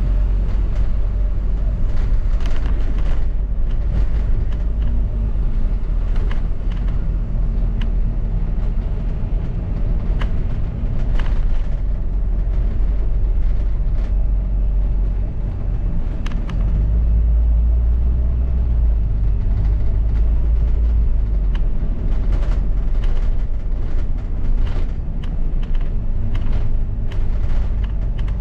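Double-decker bus heard from inside while under way: a steady low rumble of engine and road, with frequent short rattles and clicks from the bus's fittings, the rumble growing louder for a few seconds around the middle.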